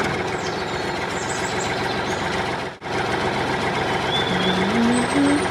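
A small motor running steadily with a dense mechanical whir, briefly cut off about three seconds in. A short run of rising notes starts near the end.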